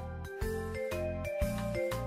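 Background music: a light melody of held notes over a steady bass beat, about two beats a second.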